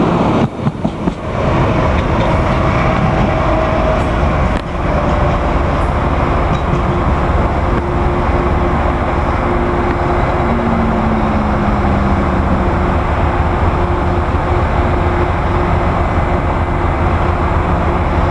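Amtrak passenger train pulling out, its last cars rolling close past with wheels clicking over the rail joints in the first second or so, then a steady loud rumble and rushing noise that holds as the train runs off down the line.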